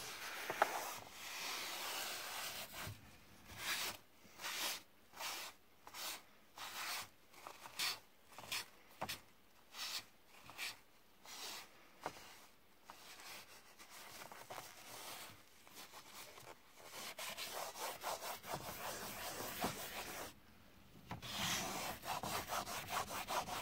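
Paper towel wiping the floor of a dog pen by hand to dry it after vinegar cleaning. It starts as quick, even back-and-forth strokes, about one and a half a second, then turns to a denser, steadier scrubbing that pauses briefly near the end and resumes.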